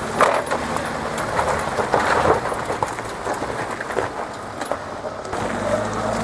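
Off-road 4x4 vehicle moving over rough ground, with its engine running under scattered knocks and rattles.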